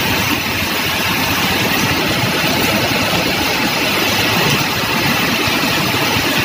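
Traffic on a flooded road: the engines of cars and a light truck running as they push through standing floodwater, with the steady wash of water thrown up by their tyres. It is a continuous noise with no single sharp event.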